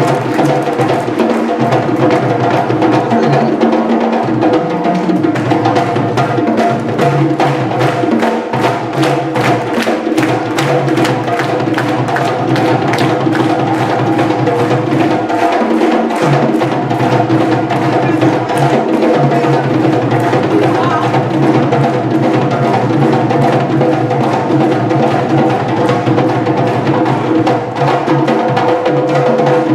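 Music driven by rapid percussion, drum and wood-block-like strikes, over steady sustained tones.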